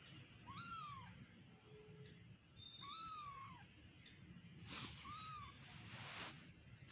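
Young kitten mewing: three high, thin mews about two and a half seconds apart, each rising then falling in pitch. Brief soft rustling sounds in the second half.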